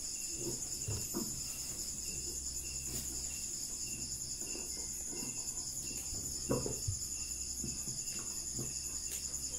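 Crickets trilling steadily in a high, evenly pulsing chorus, over a faint low hum, with a few brief soft sounds from the room, the loudest about six and a half seconds in.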